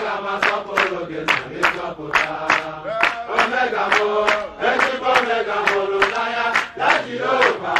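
A group of men singing a worship chorus together, clapping their hands to a steady beat of about two to three claps a second.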